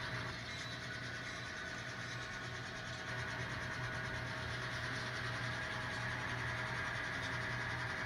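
Model train locomotive running steadily along the layout track, with a continuous low hum and rolling wheel noise that grows slightly louder partway through.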